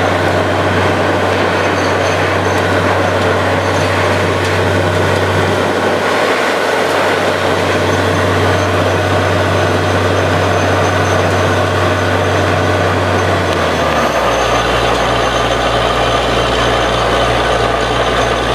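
Truck-mounted borewell drilling rig drilling, with its air compressor blowing rock dust and cuttings out of the hole. A loud, steady mechanical din over a low engine hum that drops in pitch about fourteen seconds in.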